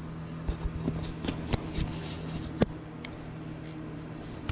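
Scattered light clicks and knocks of hands working the slackened AC drive belt off the mini excavator's pulleys, with one sharper knock about two and a half seconds in. A steady low hum runs underneath.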